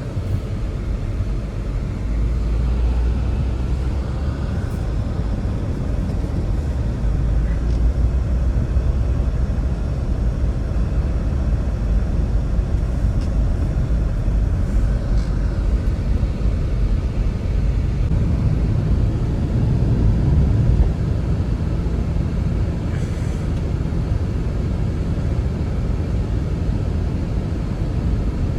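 Strong blizzard wind buffeting the microphone: a loud, steady low rumble that swells and eases in gusts, strongest about two-thirds of the way through.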